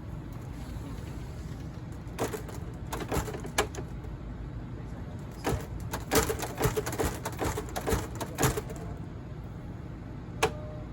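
Storm door latch being worked and the door pushed against the factory strike: a scatter of metallic clicks and knocks, thickest in the middle, with a single sharp click near the end. The new latch does not quite catch and needs adjusting.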